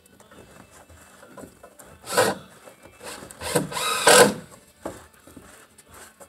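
Scraping, rasping strokes from hand tools working a white PVC fitting on a plastic tote's outlet valve, the loudest coming about two seconds in and again around four seconds in.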